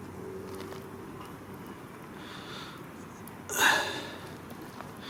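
A single loud sniff through the nose, about three and a half seconds in, over a steady background hiss.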